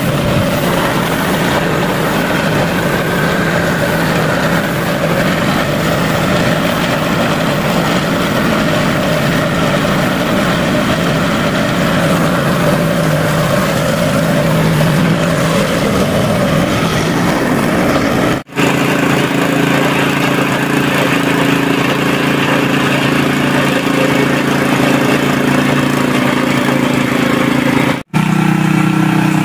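Air compressor running steadily while a suction-feed spray gun sprays paint with a hiss of air. The sound breaks off briefly twice, and after the first break the compressor's hum is steadier and more prominent.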